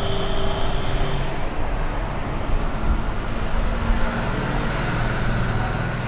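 Steady background noise with a low rumble and hiss, like road traffic; a steady tone stops about a second in.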